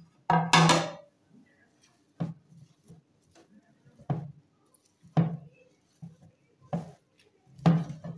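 Risen bread dough being punched down and kneaded by hand in a metal bowl on a wooden table: six dull thuds, the first and loudest about half a second in, the rest roughly every one to two seconds.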